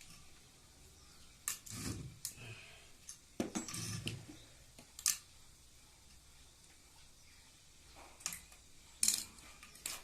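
Irregular clicks, clinks and light knocks of small hard parts and tools being handled on a work surface, scattered through the span with a busier cluster a little past three seconds in.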